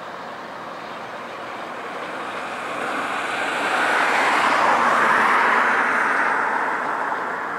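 A vehicle's rushing pass-by noise swells to a peak about four to six seconds in and then eases off, over a steadier rumble from a receding passenger train.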